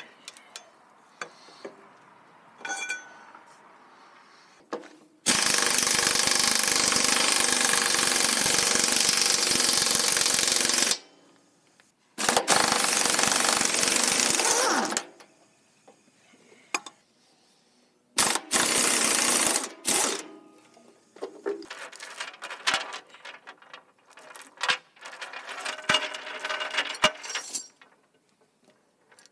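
Pneumatic impact wrench hammering on a bolt, loosening it: one long burst of about six seconds, then a three-second burst, a short one, and a run of brief stuttering bursts near the end.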